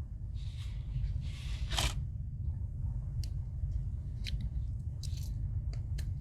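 Tweezers with plastic tips being handled at a Victorinox Swiss Army knife's scale: a couple of soft sliding scrapes in the first two seconds, then several light, sharp clicks.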